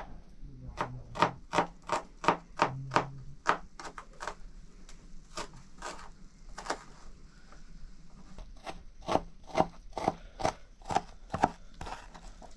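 Knife chopping food, sharp separate strokes about two or three a second, coming in three bursts with short pauses between.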